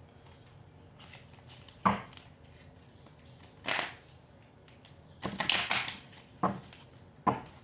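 Tarot cards being handled and shuffled by hand: short rustling shuffles and several sharp card taps, the loudest about two seconds in and twice near the end.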